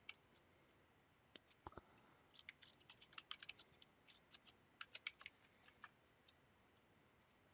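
Faint typing on a computer keyboard: a run of quick, irregular key clicks that stops about six seconds in.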